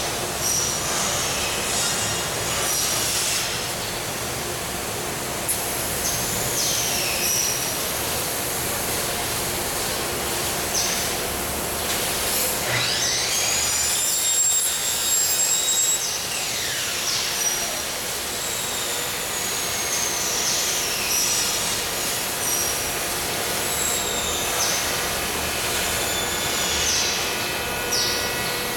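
Steady workshop background noise with repeated high-pitched squeals and screeches, some sliding up or down in pitch; the longest screech comes about halfway through.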